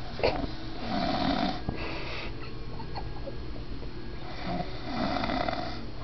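A sleeping man snoring, two long snores about three and a half seconds apart, with a short sharp sound just after the start.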